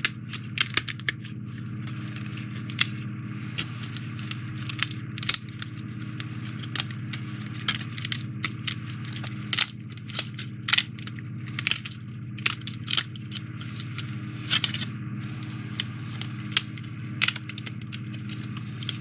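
Die-cut pieces being pressed out of a CubicFun foam-board puzzle sheet by hand: a string of sharp, irregular snaps and clicks, several a second at times, over a steady low hum.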